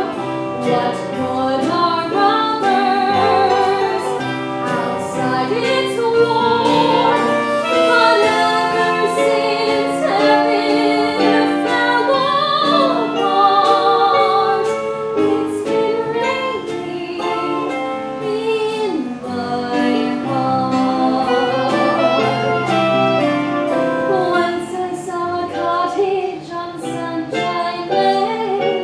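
Live theatre band playing a show tune, a melody line wavering in vibrato over a steady percussion beat.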